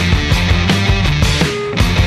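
Background rock music with a driving beat and distorted guitar, with a brief drop about a second and a half in.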